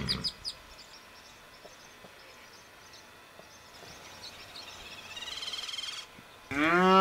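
Black Angus cattle bawling. A high call fades out at the start, a fainter high call rises about four seconds in, and near the end a cow's loud, steady moo begins.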